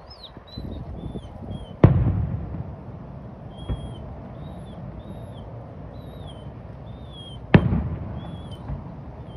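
Distant aerial firework shells bursting: a loud boom about two seconds in and another about six seconds later, each trailing off in a low rumbling echo, with a fainter pop in between.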